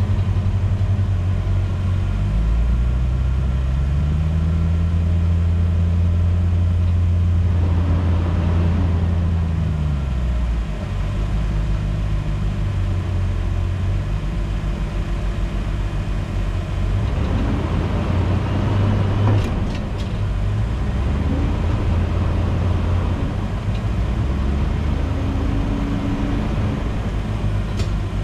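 Land Rover's engine running at low speed on an off-road trail. Its pitch rises a few seconds in, holds steady, then drops about ten seconds in, and keeps changing with the throttle after that. A few sharp knocks come just under twenty seconds in.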